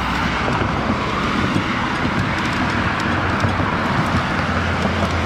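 Cars passing on the multi-lane road alongside, heard as steady traffic noise from a moving bicycle.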